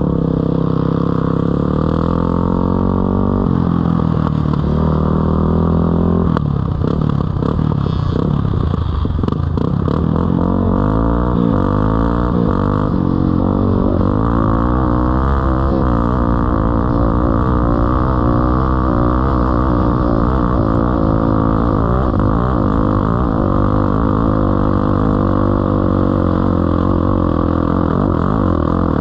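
Onboard sound of a Yamaha TT-R dirt bike's single-cylinder four-stroke engine running under changing throttle. Its pitch rises and falls repeatedly, and it runs more evenly in the second half.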